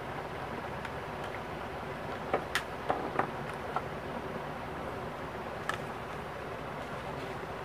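A handful of light clicks and taps, most bunched together a little past the middle and one more a couple of seconds later, over a steady background hiss.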